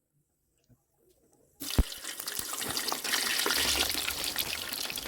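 Potato snacks frying in hot oil: a dense sizzle and crackle starts suddenly about one and a half seconds in, with a single sharp knock just after it begins.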